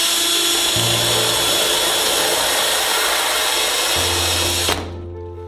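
Power drill spinning a rivet removal tool's bit, drilling out the head of an aircraft rivet while the tool's spring-loaded tip holds the head so it doesn't spin. The steady drilling noise cuts off suddenly near the end.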